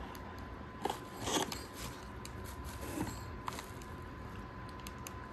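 Quiet handling noise: a few light clicks and a brief crinkle of plastic packaging as a piston is turned over in its foam-lined box.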